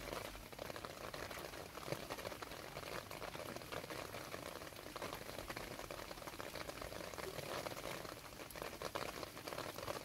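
Rain falling steadily into a shallow puddle on paving: a dense, even spray of many small drops splashing into the water.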